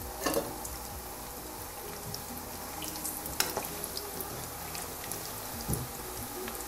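French fries sizzling and bubbling in deep, hot oil on full flame, the second fry that turns them golden brown, with a few sharp ticks along the way.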